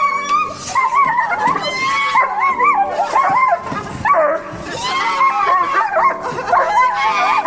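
A dog whining and yipping in a long string of wavering, rising and falling cries, over background music with steady held notes.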